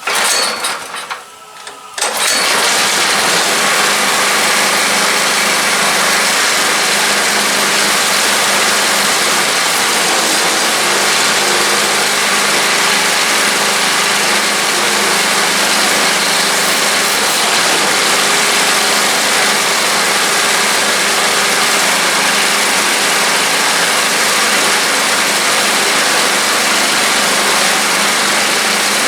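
Snowblower's small gasoline engine catching about two seconds in and then running steadily. The owner suspects worn piston rings: low compression and a lot of blow-by.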